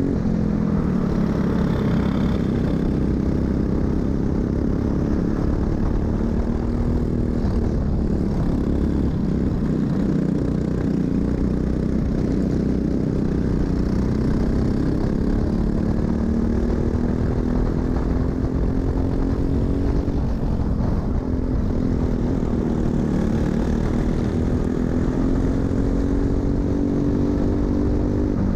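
Racing kart engine running hard on track, its pitch climbing on the straights and dropping as it slows for corners, several times over, with a constant low rush of wind and road noise.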